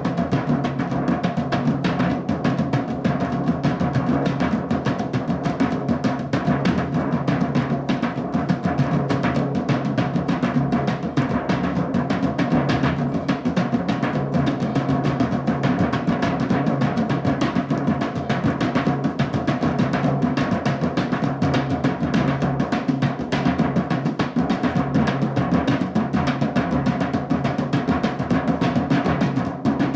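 Drumming music: a fast, dense stream of drum strikes at an even loudness, with no break.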